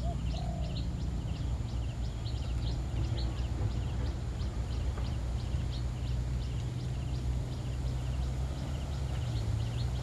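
Rural outdoor ambience: a continuous run of short, high chirps, several a second, over a steady low hum.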